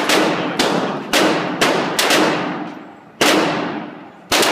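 Glock 26 9mm pistol firing about seven shots at an uneven pace, half a second to a second apart with a longer pause past the middle, each bang trailing off in a long echo in an indoor range.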